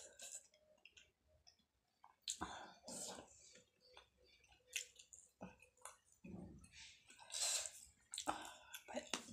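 A person chewing food close to the microphone, in irregular bursts of wet mouth sounds with short quiet gaps between them.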